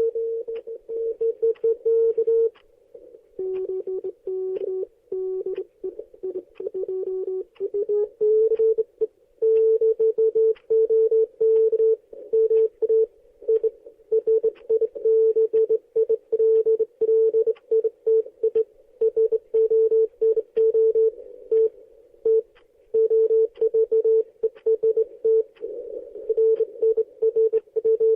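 Morse code: a single steady beep keyed on and off in short and long marks. From about three seconds in, a lower, quieter tone keys for a few seconds, then slides up near the eighth second before the first tone resumes.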